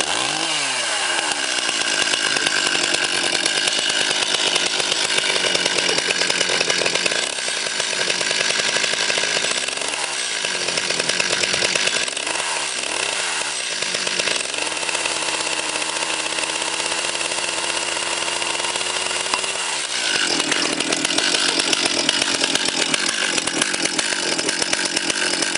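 Petrol chainsaw's two-stroke engine running, its pitch falling and rising as the throttle is let off and opened again several times, with a steadier stretch in between.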